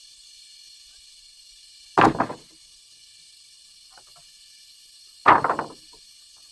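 Two heavy thuds about three seconds apart, each followed by a short quick rattle, over a steady high hiss.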